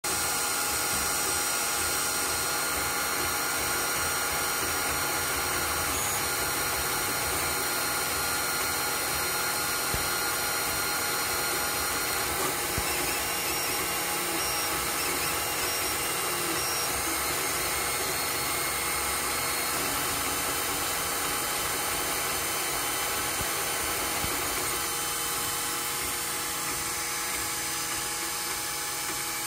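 Anycubic i3 Mega 3D printer printing its first layer: stepper motors and cooling fans give a steady whine made of many held tones as the print head moves.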